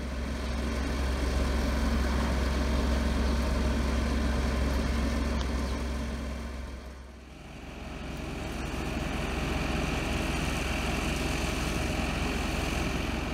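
A parked red box truck idling: a steady low diesel rumble with a steady hum. After a short dip about seven seconds in, a steady high whine runs along with it.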